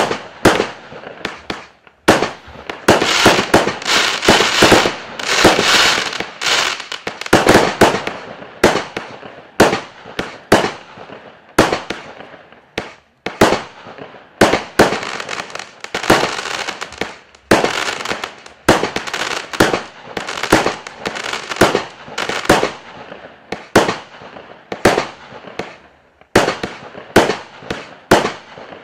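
A 64-shot, 20 mm-calibre firework cake (Klasek Best Price Wild Fire) firing shot after shot. Sharp bangs come one or two a second at irregular spacing, with a denser, unbroken run of bangs and hiss about three to six seconds in.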